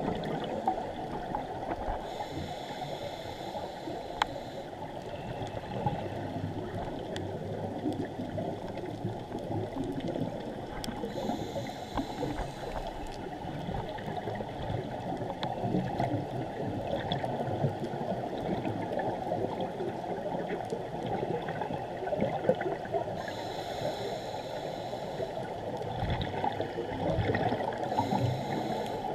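Steady muffled water noise picked up by a GoPro in its underwater housing during a scuba dive, with a brief higher hiss coming in four times.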